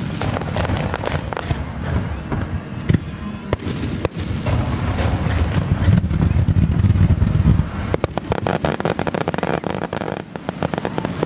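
Aerial fireworks shells bursting in quick succession: deep booms and rumble under sharp cracks, with a dense run of crackling about eight to ten seconds in.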